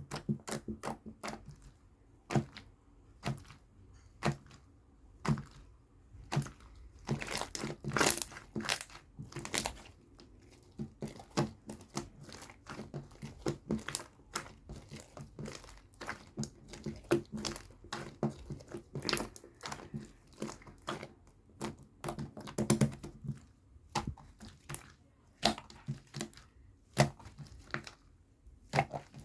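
Slime being squished and pressed by hand, making irregular sticky pops and crackles, some in quick clusters.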